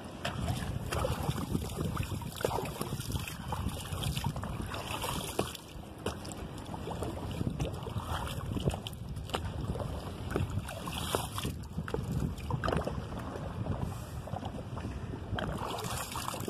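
Wind buffeting the microphone, an uneven rumble that rises and falls, with water moving and splashing beside a small wooden river boat.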